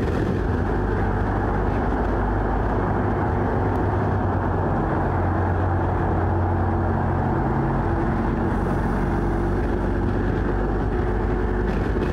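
BMW R 1250 GS boxer-twin motorcycle ridden at steady motorway speed: a constant engine drone under a steady rushing noise of the ride.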